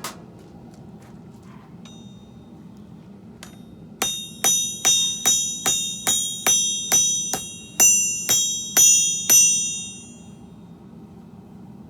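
Hand hammer striking steel on an anvil: about a dozen quick blows at roughly two and a half a second, each ringing brightly, with the last few the loudest, then the ringing dies away.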